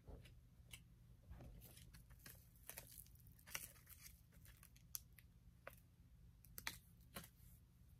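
Thin clear plastic crinkling and crackling as fingers handle and peel at it, in irregular sharp little crackles, the loudest about three and a half and six and a half seconds in.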